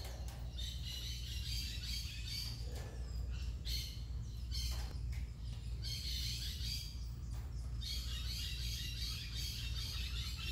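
High-pitched chirping and twittering calls, coming in stretches of a second or two with short gaps, over a steady low rumble.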